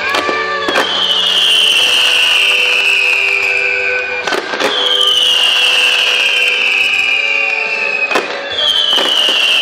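Fireworks display: sharp bangs a few seconds apart and long falling whistles about every four seconds, with music playing underneath.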